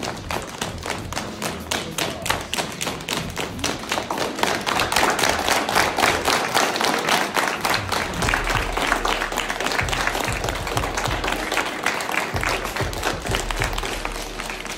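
A group of people clapping together in a fast, steady rhythm, about five claps a second, louder around the middle.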